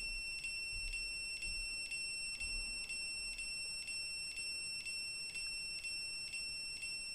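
Continuity buzzer of a two-pole voltage tester sounding a steady high tone that pulses about three times a second. The tester is connected across an immersion heater's rod thermostat, so the tone means the thermostat contacts are still closed while its probe is being heated toward the cut-off temperature.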